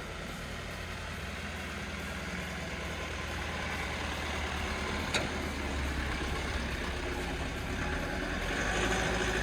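Diesel engine of an Ashok Leyland 1920 Boss tanker truck running steadily, with a low rumble that slowly grows louder. There is one sharp click about five seconds in.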